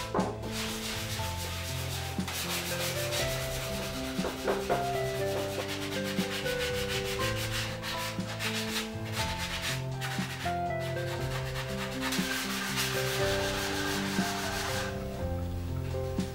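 Hand sanding wood with a sanding block: quick back-and-forth scratchy strokes over a wooden napkin holder and board, stopping about a second before the end. Soft background music plays underneath.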